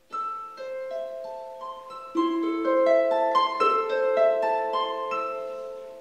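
Concert harp playing solo: a run of plucked notes climbing upward, each left to ring on under the next, with louder, lower notes joining about two seconds in. The notes die away near the end.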